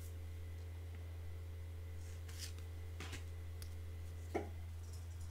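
A few faint, short scrapes and ticks of playing-card-sized oracle cards being slid and moved through a deck by hand, the clearest about four seconds in, over a steady low hum.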